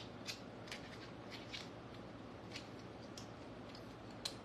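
Several light plastic clicks and taps at irregular intervals, from small plastic items being fiddled with in the hands.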